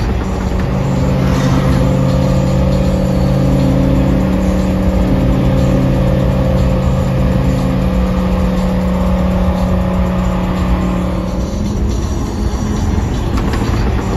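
Exhaust of a twin-turbo V6 Acura NSX and a V10 Lamborghini Huracan Performante cruising side by side at a steady speed: a constant drone over wind and road noise. It fades about eleven seconds in and picks up again near the end.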